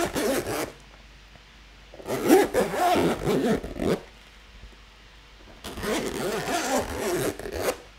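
Metal zipper on a hard-shell fibre microphone case pulled along in long strokes: a short pull at the start, then two long pulls of about two seconds each.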